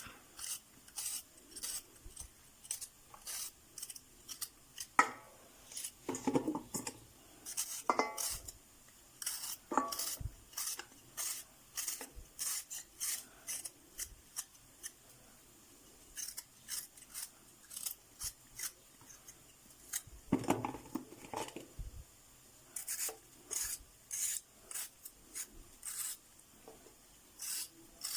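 Potatoes being peeled: short scraping strokes of a blade across the skin, about two a second, with a few knocks as the potatoes are handled.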